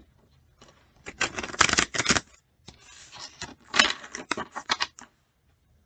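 A deck of oracle cards being shuffled by hand: quick runs of card clicks and rustling in two bursts, the second longer.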